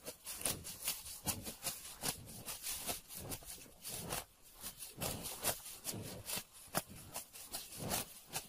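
A cow grazing, tearing and cropping grass with its mouth: a quick irregular series of crisp rips and crunches, a few each second.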